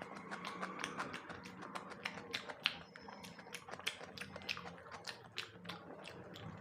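Close-miked eating of boiled egg: a quick, irregular run of wet mouth clicks and smacks from chewing, several a second.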